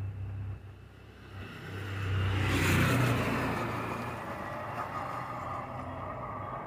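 A motor vehicle going by, its noise swelling to a peak about three seconds in and then fading, over a steady low hum.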